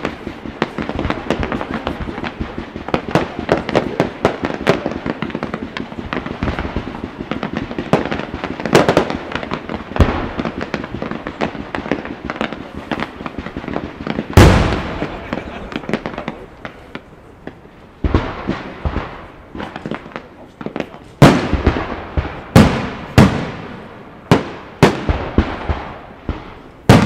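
Professional fireworks display. For the first half there is a dense run of crackling pops and bangs, then one loud bang about halfway through. After that, aerial shell bursts go off one after another, each a sharp report that dies away.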